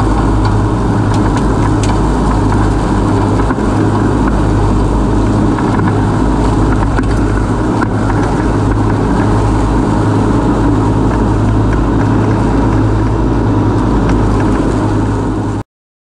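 Husqvarna Rider R214 TC's 586 cc Loncin twin-cylinder engine running steadily under load while its three-blade front deck mulches the grass. The sound cuts off suddenly near the end.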